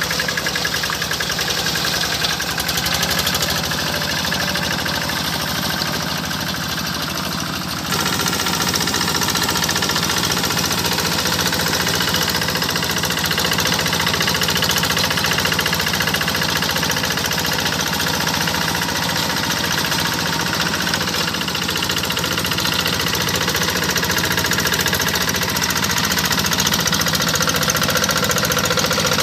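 Kubota single-cylinder diesel of a Quick G1000 Boxer hand tractor, fitted with a very long exhaust pipe, running steadily with a knocking beat while it pulls through paddy mud. The sound changes abruptly and gets a little louder about eight seconds in.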